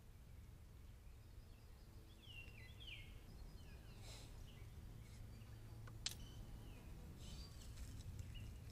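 Faint woodland ambience: distant small birds giving short downward-slurred chirps, a cluster about two to three seconds in and a few more later, over a steady low hum. A single sharp click sounds about six seconds in.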